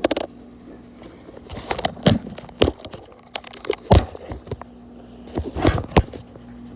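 A few sharp knocks and clicks of kitchen items being handled at the stove, the loudest about four and six seconds in, over a steady low hum.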